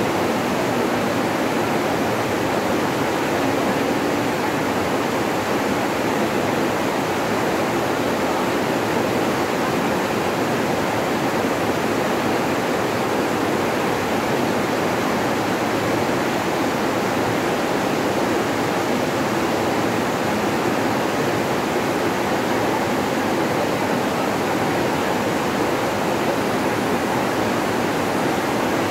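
Fast, muddy river rushing through rocky rapids: a steady, loud rush of water.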